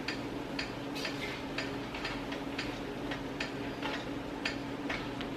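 Rice and water simmering in a cast iron skillet as the water cooks down, with bubbles popping in irregular light ticks about three a second. A steady low hum runs underneath.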